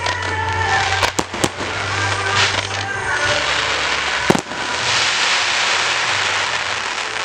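Aerial fireworks shells exploding: three sharp bangs close together about a second in and a loud single bang just after four seconds, followed by a couple of seconds of dense crackling hiss. Music plays faintly underneath.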